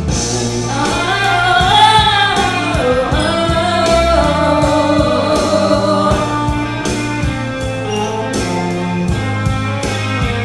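Rock band accompaniment with drums and guitar, and a woman singing a wordless vocal line over it, her voice sliding up and down in pitch in the first half.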